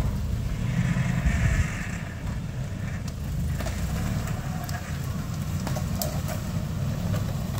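A pickup truck's engine idling steadily, with a few faint clicks over it.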